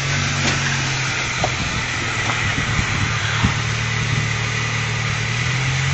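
Suzuki Samurai 4x4's engine running steadily at low revs as it crawls over rocks, with a few faint knocks.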